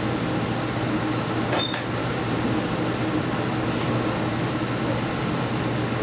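Steady running noise of a diesel express train heard from inside its leading car, with a constant low engine-and-track hum. A few short clicks and a brief high beep come about a second and a half in.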